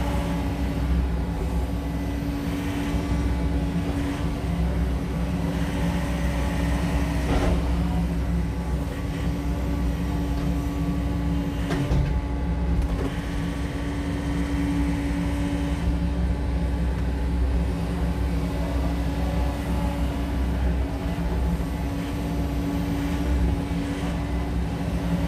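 SANY SY80U mini excavator's diesel engine and hydraulics running steadily as the machine swings and works its boom, with two short sharp knocks, about seven and twelve seconds in.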